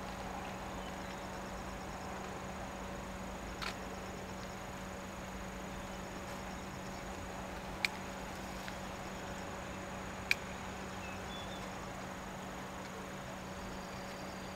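Quiet rural ambience: faint insect calls over a low steady hum, with two sharp clicks about two and a half seconds apart in the second half.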